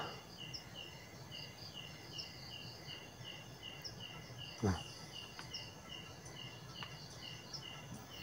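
Faint insect chirping in a steady rhythm, about three short chirps a second, with a sharp click at the start and another about halfway through.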